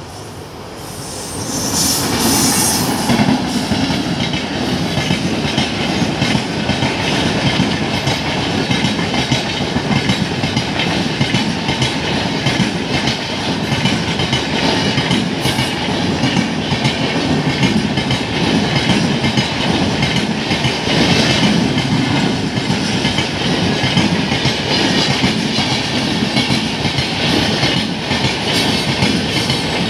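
Express train of LHB coaches hauled by a WAP-7 electric locomotive passing close at full speed: the sound rises sharply about a second and a half in as the train arrives, then the coaches run by with a steady rush and a continuous clickety-clack of wheels over the rail joints.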